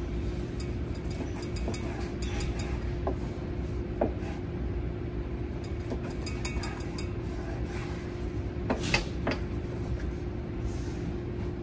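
Knife slicing cooked flank steak on a cutting board, with a few light knocks and clinks, the sharpest about four seconds in and a cluster near nine seconds. A steady low hum underneath.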